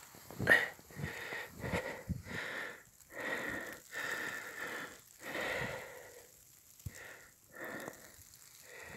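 A person breathing hard and wheezily, a run of heavy breaths every half second to a second that thin out near the end: the exertion of wading through knee-deep snow.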